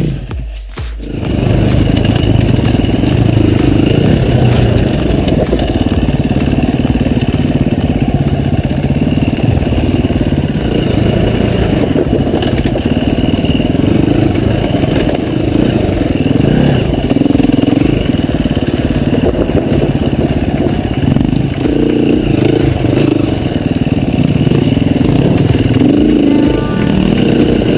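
Enduro dirt bike engine running on a trail ride, its revs rising and falling continually. The sound dips briefly about a second in.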